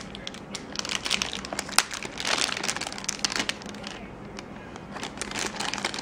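Hard drive's metallized anti-static bag crinkling and crackling as it is handled and unwrapped, in irregular rustles with small clicks, easing for a moment about four seconds in.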